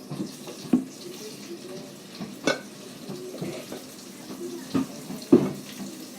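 A few sharp knocks and clinks of bowls, cups and utensils being handled on a table, over a low background.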